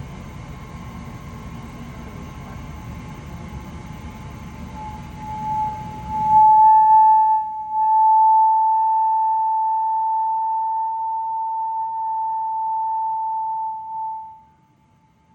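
Forced-air furnace running with a steady rumble. About five seconds in, a loud steady high-pitched whine swells in. The rumble stops a moment later, and the whine holds for about eight seconds more before cutting off.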